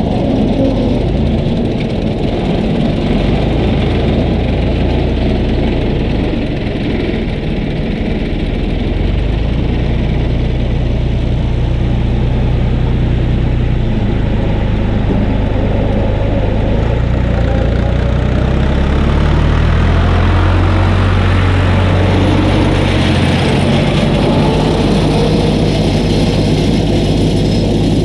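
Farm tractor engine running steadily, its engine speed stepping up and down several times.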